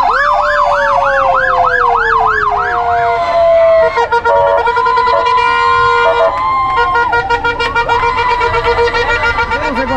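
Electronic emergency-vehicle sirens running through their patterns: a fast rising-and-falling yelp for about three seconds, then a long falling tone, then steady and pulsing tones from more than one siren at once.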